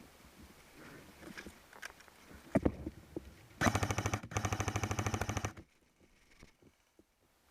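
An airsoft electric gun firing full-auto in two quick bursts, a short one and then a longer one, about three and a half seconds in. Before it there are scattered clicks and rustling.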